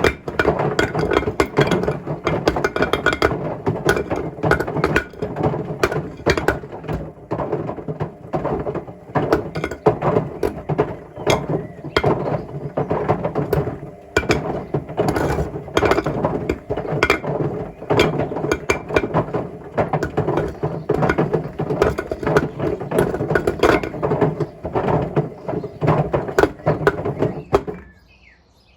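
Bricks tumbling in the drum of a Hotpoint Smart Tech WMFUG742 washing machine mid-wash: a loud, continuous clatter of rapid knocks and bangs. It cuts off abruptly near the end.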